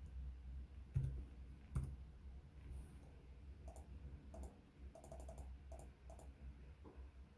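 Light clicks and taps. Two sharper knocks come about a second in and just before two seconds, then a quick run of small clicks between about four and six seconds, over a low steady hum.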